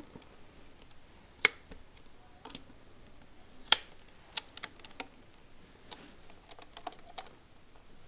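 Scattered sharp clicks and taps, two louder ones about a second and a half in and near four seconds in, then a run of lighter clicks.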